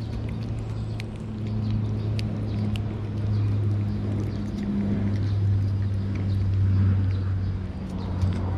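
A steady low mechanical hum, like an engine or motor running, that swells a little at times. Over it come faint quick clicks of a cat licking lickable treat paste from a squeezed tube.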